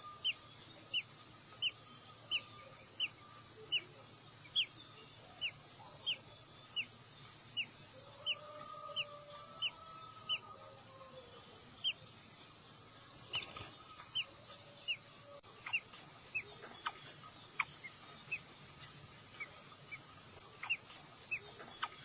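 A bird repeating a short, high, falling chirp about one and a half times a second, over a steady high-pitched insect drone.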